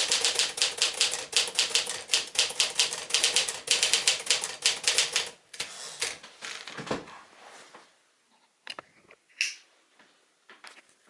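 1955 Smith-Corona Silent-Super portable typewriter being typed on fast, its keys striking in a quick steady run. The typing stops about halfway, followed by a few scattered clicks, a low thump and some faint knocks.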